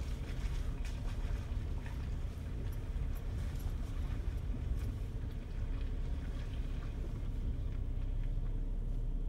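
Jeep's engine and drivetrain running low and steady, heard from inside the cab while crawling along a muddy, rutted trail, with scattered small knocks and rattles.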